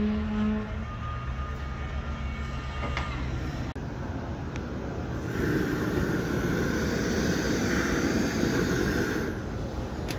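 Machinery running with a steady engine hum. After a break a few seconds in, a louder rushing mechanical noise comes in for about four seconds and then eases.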